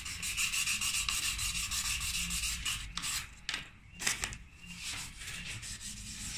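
Sandpaper scrubbed back and forth on the rusty steel bottom of a gas cylinder, cleaning off the rust: fast, continuous scratching for about three seconds, then a few separate strokes and softer rubbing.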